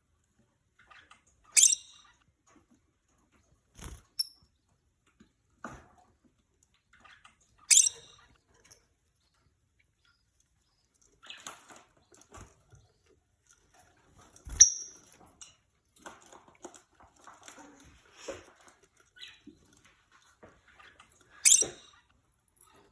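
Peach-faced lovebirds giving loud, sharp, shrill chirps, a few seconds apart, with softer clicks, taps and scratching between them. A knock, with a short high chirp on top of it, comes about halfway through.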